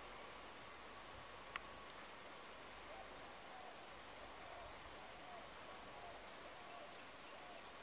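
Garden ambience: a steady, high-pitched insect drone under a bird's short falling whistles, which come a few times. A single sharp click sounds about a second and a half in.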